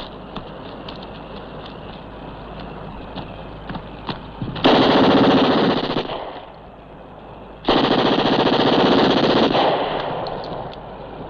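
Two long bursts of automatic gunfire: the first about four and a half seconds in, lasting a second and a half, the second about three seconds later and a little longer.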